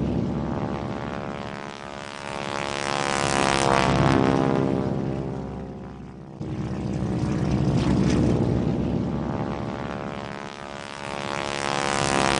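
Propeller airplane engine sound effect, swelling and fading as if a plane flies past, with the pitch sliding at each pass. It breaks off abruptly about six seconds in and starts again in the same pattern.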